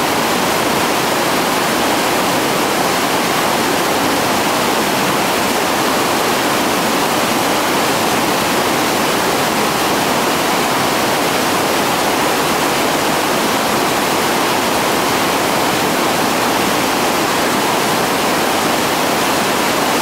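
Whitewater rapids rushing over boulders: a steady, unbroken noise of churning water.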